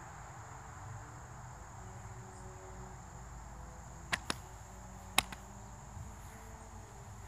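Insects droning steadily at a high pitch, with two short sharp clicks about a second apart past the middle.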